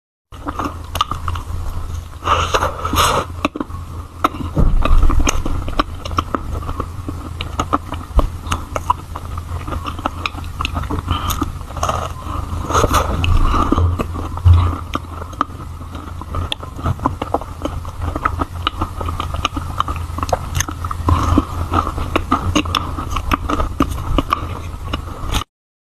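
Close-miked chewing and biting of a macaron: soft crunches, clicks and mouth sounds over a steady low hum, cutting off abruptly near the end.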